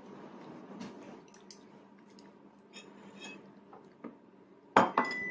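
Faint clicks and scrapes of a child's small fork against a plastic divided plate while eating, with one sharp knock near the end, the loudest sound.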